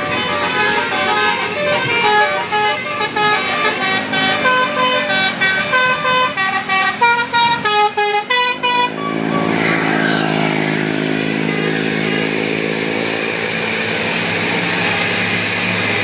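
A bus's musical 'telolet' air horn (basuri) playing a quick melody of short notes for about nine seconds, getting faster near the end. After that, a bus's diesel engine runs steadily as it goes by.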